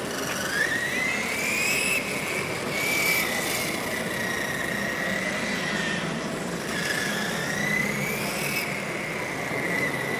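Electric RC motorcycle's motor whining as it rides. The high whine climbs just after the start, sinks, and climbs again a little before the end as the bike speeds up and slows down.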